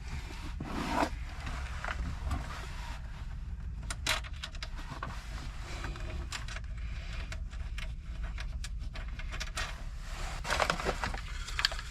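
Scattered small clicks and taps of washers and nuts being fitted by hand onto the inverter's mounting bolts, over a low steady hum.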